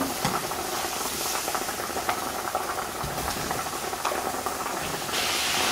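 Marinated minced meat hitting a hot pan of browned onions and garlic and sizzling as it fries, with light clicks of a spatula stirring it. The sizzle grows louder about five seconds in.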